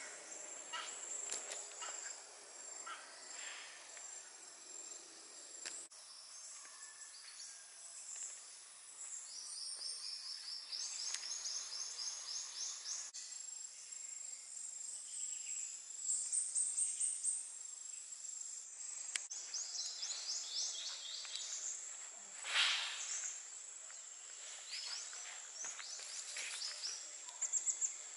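Forest insects: a steady high buzzing with repeated runs of rapid, high chirping trills, and one louder call about two-thirds of the way through.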